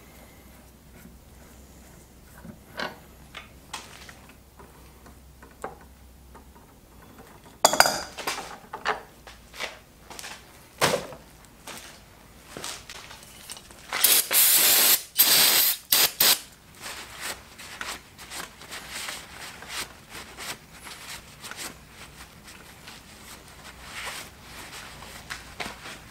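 An aerosol spray can hissing in a few short back-to-back bursts, about two seconds in all, around halfway through. Scattered clinks and taps of tools and metal steering-rack parts come before and after it.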